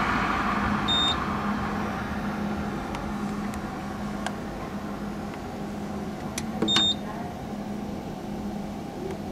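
Cash machine keypad beeping: two short, high electronic beeps, about a second in and again near seven seconds, with a few faint key clicks between them. A steady low hum and background noise run underneath.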